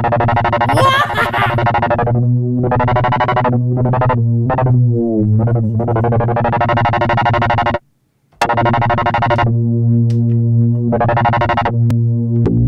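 Modal Electronics Cobalt5S virtual-analogue synthesizer played from its keyboard: sustained chords over a deep bass note, changing every second or two, with a brief rising sweep about a second in. The sound cuts out for about half a second around the middle, then the chords resume.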